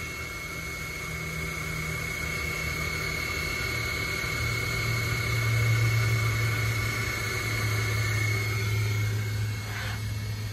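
Stepper motors of an Ortur Laser Master 3 diode laser engraver humming and whining as the laser head traces the framing outline. The hum drops in pitch and grows louder about four seconds in, and the high whine fades out near the end. A short click follows near the end.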